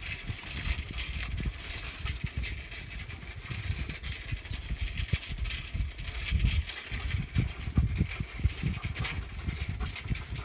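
Bicycle ridden over a dirt track: tyres on loose dirt and clicks and rattles over bumps, with wind buffeting the microphone.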